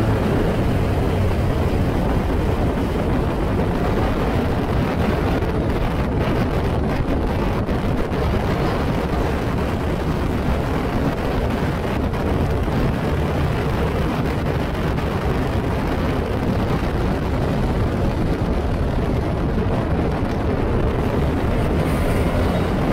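Heavy, steady wind howling over the microphone of an open-cockpit Formula Ford at speed, with the car's engine running underneath.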